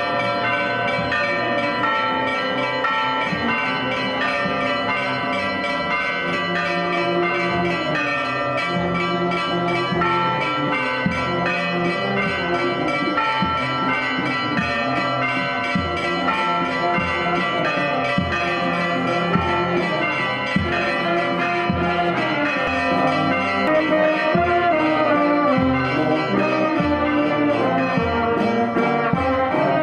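Church bells ringing, mixed with a marching band's brass playing a slow tune. In the second half a bass drum beats about once a second and the band grows louder as it approaches.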